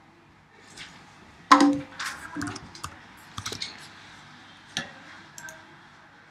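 Computer keyboard keys and clicks tapped at uneven intervals, the loudest about a second and a half in.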